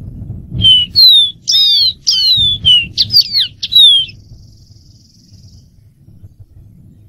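Dark-throated seedeater singing: a quick phrase of about ten clear whistled notes, most slurring downward, lasting about three and a half seconds and ending in a faint buzzy trill.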